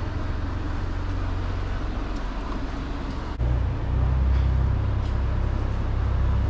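Low, steady machine drone, like an engine or motor running, that steps up louder with a click about halfway through.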